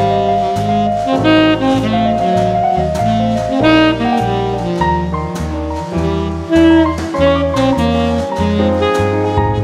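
Background jazz music: a saxophone melody over a bass line that steps to a new note about twice a second, with drums.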